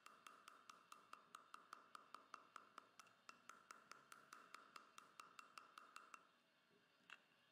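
A mallet tapping lightly and rapidly on a manual periotome, about five even taps a second, each with a short ring. The taps stop about six seconds in, and one more tap follows near the end. The tapping drives the periotome blade down the mesial and distal sides of the tooth root for an atraumatic extraction.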